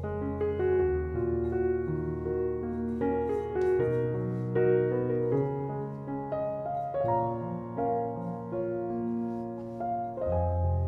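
Background piano music, with held bass notes that change every three seconds or so.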